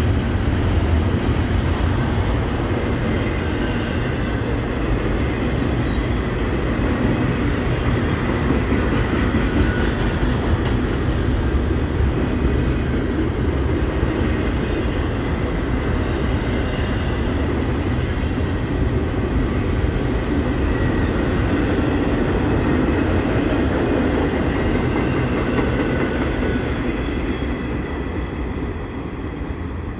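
CSX double-stack intermodal freight train's well cars rolling slowly past on steel wheels and rails, a loud steady sound that eases a little near the end.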